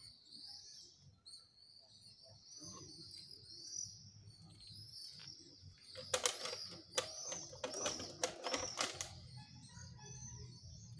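Small birds chirping over and over in a steady string, over a low outdoor hum. Midway, a run of sharp clacks, about three a second, lasts some three seconds and is the loudest sound.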